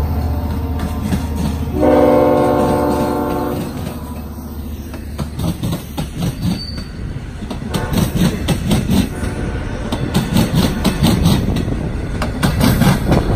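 LIRR DE30AC diesel-electric locomotive sounding one horn blast of about two seconds over the diesel engine's low running, then the train's wheels clicking over the rail joints in a steady rhythm as the cars roll past.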